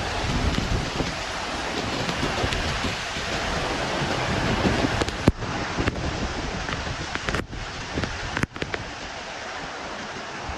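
Heavy rain and strong wind, with the wind rumbling on the microphone. The sound drops out for an instant a few times in the second half.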